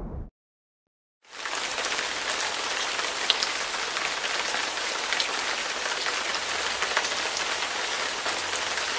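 Steady rain, an even dense hiss with scattered drop ticks, starting about a second in after a short silence. The tail of a low rumble cuts off right at the start.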